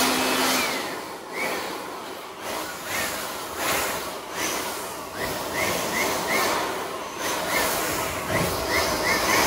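Electric air blower blowing dust out of an opened laptop: a loud, steady rush of air that swells and dips repeatedly, with short high chirps throughout.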